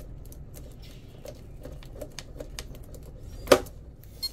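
Irregular small clicks and crackles of hands working double-sided tape and wires, with one sharp, louder click about three and a half seconds in.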